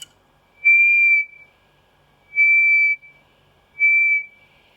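A piezo speaker fed by an LM386 amplifier on an AD8307 RF detector sounds three steady, high-pitched tones of about half a second each, as the detector picks up a nearby FM transmitter.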